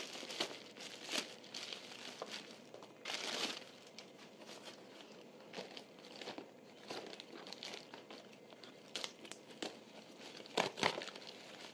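Plastic courier mailer bags and taped packages crinkling and rustling as they are handled and cut open with scissors, with a longer tearing sound about three seconds in and a couple of sharp clicks near the end.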